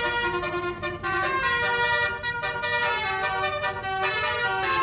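Bus telolet horn, a set of musical air-horn trumpets, playing a tune: several steady notes sounding together and stepping to new pitches every fraction of a second.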